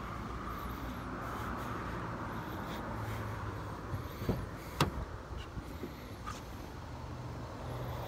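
Kia Sportage driver's door being opened: two sharp clicks about half a second apart a little past halfway, the door handle pulled and the latch releasing, over a steady outdoor hum.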